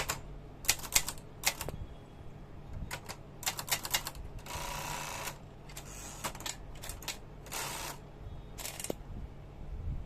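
Rover 5000 manual typewriter being typed on: bursts of sharp keystroke clacks in quick runs, broken twice by a longer scraping sound lasting up to about a second, with the typing stopping near the end.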